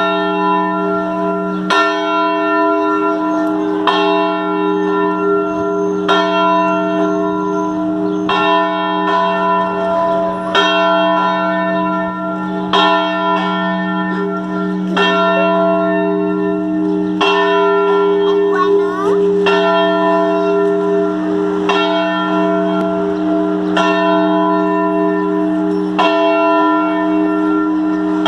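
A bell tolling, struck about once every two seconds. Each stroke rings on into the next, so its hum never dies away between strikes.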